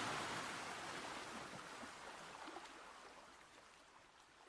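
Faint, even hiss fading away steadily to near silence.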